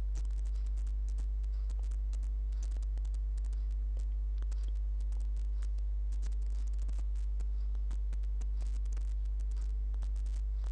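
Computer keyboard typing: quick, irregular key clicks as a username and password are entered, over a steady low hum.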